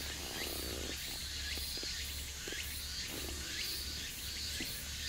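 Insects chirring in a high, evenly pulsing rhythm several times a second, with short rising chirps mixed in and a steady low hum underneath.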